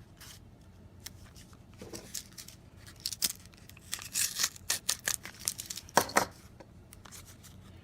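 Handling of a laptop DDR4 SODIMM memory module and its plastic packaging: a run of short sharp clicks and rustles, busiest in the middle.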